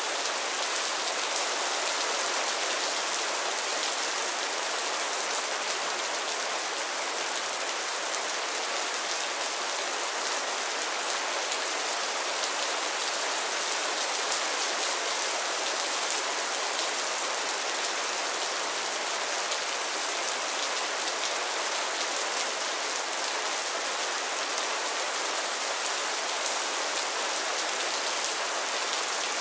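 Mild rain falling steadily on a roof and the ground, a dense patter of drops.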